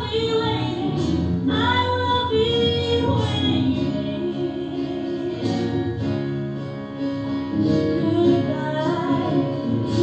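A woman's voice singing a musical-theatre song over live piano accompaniment. Her voice drops back through the middle, leaving mostly the piano's held notes, and the singing comes back near the end.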